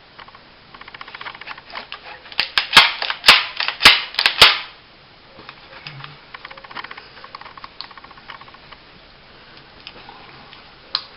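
A small 1911-style 9mm pistol being worked by hand: light mechanical clicking, then a run of about six loud, sharp metallic clacks a few seconds in, then lighter clicks again and a single sharp click near the end.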